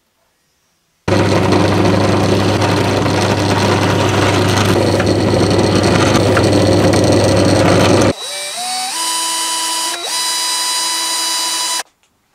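Electric drill boring through clamped MDF blocks: a loud, steady run with a low motor hum that starts about a second in and lasts about seven seconds. Then a quieter motor whine that rises in steps, dips once and stops near the end.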